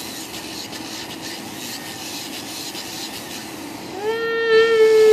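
Faint rasping rub, as of a nail being filed. About four seconds in, a loud, steady pitched tone like a horn or whistle starts and keeps going.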